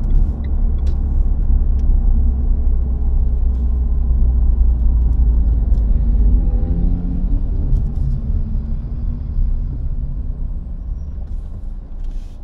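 Low engine and road rumble inside the cabin of a moving Renault Sandero, with a faint engine tone that drifts in pitch midway and the noise easing a little near the end.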